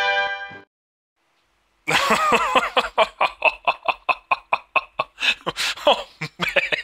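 A person laughing hard in rapid, even bursts, about five a second, starting after a second-long silence near the start. A held pitched tone breaks off just after the start.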